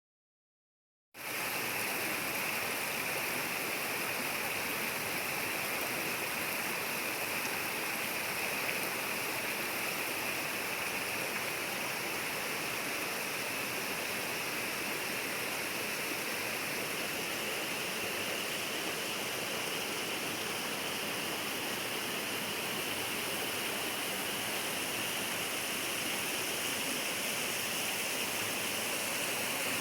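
Steady rush of a mountain stream's flowing water, cutting in suddenly about a second in after complete silence.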